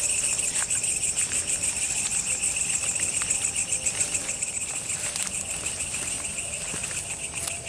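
A night chorus of insects calling in fast, steady pulses, high-pitched, with a few faint ticks over it.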